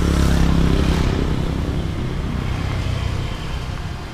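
A motorcycle passing close by, its engine loudest in the first second and then fading into the steady rumble of street traffic.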